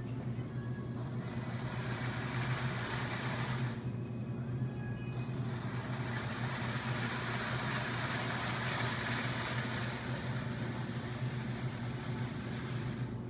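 O scale model train running along its track, heard over a steady low hum and hiss from the store's freezer cases; the hiss thins briefly about four seconds in.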